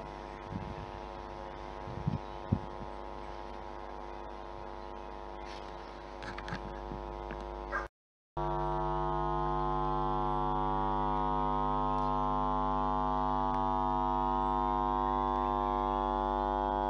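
Steady electrical buzz from the camera itself while zooming, a flat drone with many even overtones. It cuts out for a moment about eight seconds in and comes back louder.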